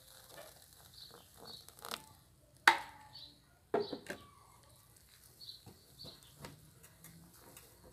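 Metal balloon whisk mixing cake batter in a bowl, the wires giving irregular sharp clicks and knocks against the bowl, the loudest a little under three seconds in and two more around four seconds in.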